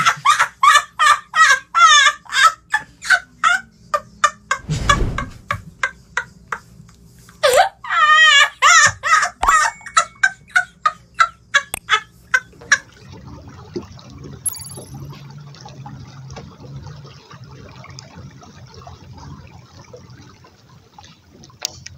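Loud rapid cackling calls, several a second with a wavering pitch, for about the first twelve seconds; then they stop and only a faint low rumble remains.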